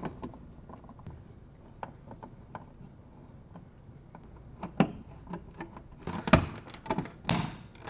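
Scattered light clicks and taps of hands fitting a dimmer into a wall box and snapping a plastic wall plate on, with a louder run of clicks near the end.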